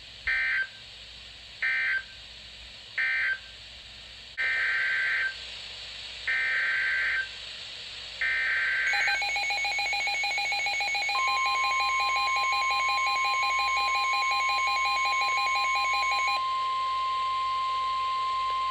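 Emergency Alert System SAME data bursts: three short digital squawks that end the previous warning, then three longer header squawks announcing the next one. A fast-pulsing electronic beeping follows, and about two seconds later the steady NOAA Weather Radio warning alarm tone joins and holds on after the beeping stops.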